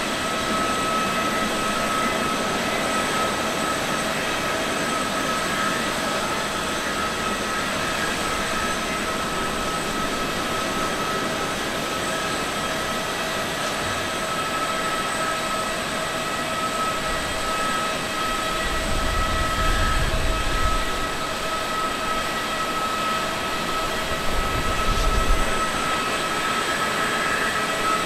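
Japan Airlines Boeing 777-300ER's GE90 jet engines running at taxi power: a steady whine with a high, even tone. A deeper rumble swells twice in the second half.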